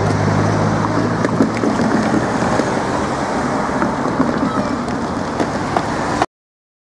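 Road traffic on a busy road, with a low engine hum from a passing vehicle that fades about a second and a half in. The sound cuts off suddenly near the end.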